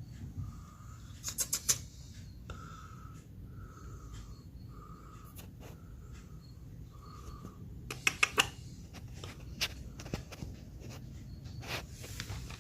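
A bird calling over and over, a short even note repeated about once a second. Two quick bursts of sharp clicks come about a second in and again later, over a steady low rumble of wind.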